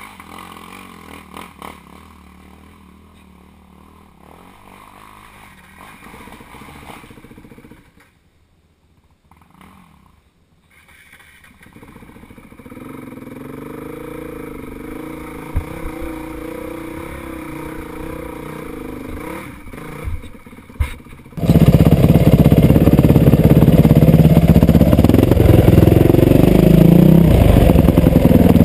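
Dirt bike engine heard faint and muffled at first, with a brief near-silent dropout about a third of the way in, then a steady running note. A little past two-thirds of the way in it turns suddenly loud: a Yamaha WR450F's single-cylinder four-stroke engine running close to the microphone while riding a rutted trail climb.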